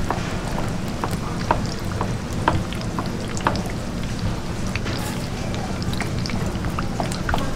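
Plastic wrap crinkling as it is pulled off a tray of steamed sundae, and a kitchen knife cutting sundae and liver on a wooden cutting board in short sharp taps. Under it all runs a steady background noise.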